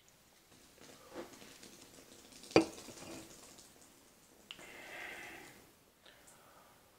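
Beer pouring from a can into a glass and fizzing, with one sharp clink about two and a half seconds in. A second, shorter clink comes a couple of seconds later, then about a second of hissing while he drinks from the glass.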